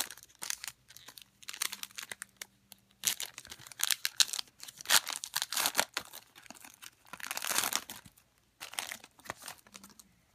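Foil wrapper of a Prestige football trading card pack crinkling and tearing as it is opened, with the cards rustling as they are pulled out. The crackles come in irregular bursts, loudest a few seconds in and again about three-quarters of the way through, and fade out shortly before the end.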